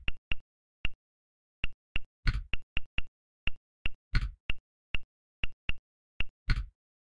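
Key-press clicks from a smartphone's on-screen keyboard as Arabic text is typed, about twenty at an uneven typing pace. Each click is short and sharp on the same bright pitch, and three of them, about two, four and six and a half seconds in, are longer and louder.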